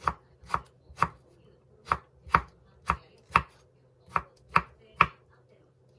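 Kitchen knife slicing hachiku bamboo shoots on a wooden cutting board: about ten crisp chops, roughly two a second with a couple of short pauses, each stroke knocking through onto the board.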